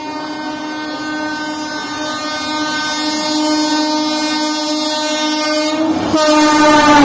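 WAP7 electric locomotive horn blowing one long blast as the train approaches at speed, growing steadily louder. It breaks off briefly about six seconds in, then sounds again with its pitch dipping slightly.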